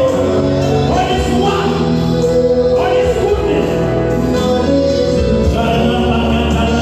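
Gospel music with singing and a band, held notes over a steady bass and beat.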